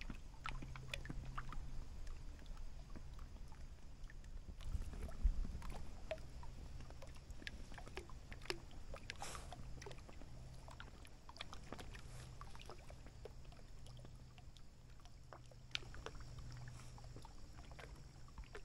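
Quiet water sounds around an inflatable kayak at rest on calm water: soft lapping with scattered small clicks and drips, over a faint low hum.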